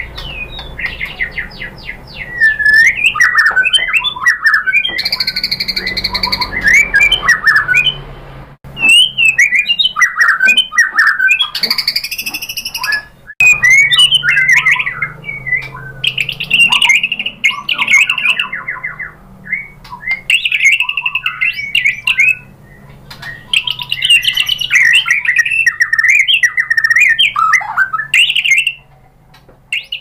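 White-rumped shama singing a long, loud, varied song of whistled phrases, harsh squawky notes and fast clicking trills, with only brief breaks.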